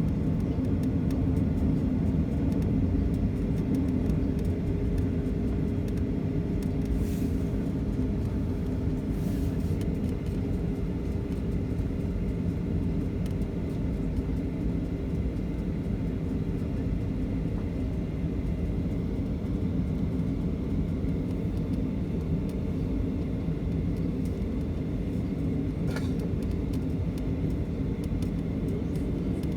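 Steady low rumble inside the cabin of a Boeing 737 taxiing after landing, its jet engines at idle with a faint steady whine above the rumble. A few faint ticks sound now and then.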